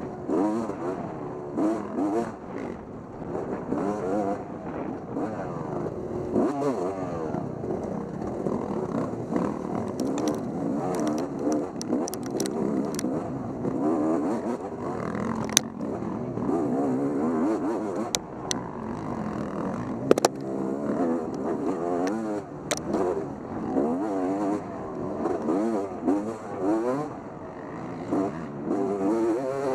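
Motorcycle engine revving up and down repeatedly as it is ridden, its pitch rising and falling every second or two, with a few sharp clicks and knocks around the middle.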